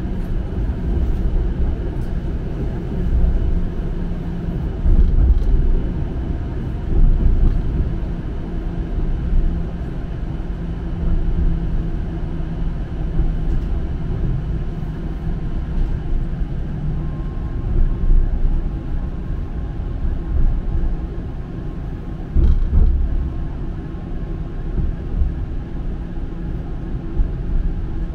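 Toronto streetcar running along its tracks, heard from inside the car: a steady low rumble of motors and wheels on the rails, with a few louder bumps.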